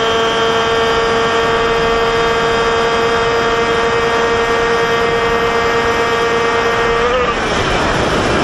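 Moped engine running at a steady high note while riding, over rushing wind and road noise. About seven seconds in, the engine note wavers up and then drops away, leaving only the wind rush as the throttle is let go.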